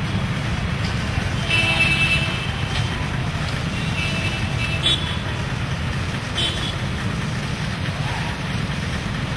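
Road traffic moving through a flooded street: a steady low rumble of engines, with a few short vehicle horn toots, the loudest about one and a half seconds in and a brief one near the end.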